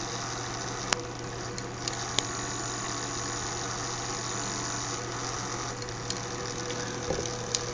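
Small fischertechnik DC motors running with a steady electric hum, with a few faint clicks.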